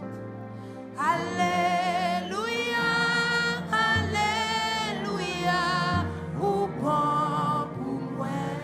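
Gospel worship singing: a woman's voice enters about a second in, holding long, wavering notes with strong vibrato over steady instrumental accompaniment chords.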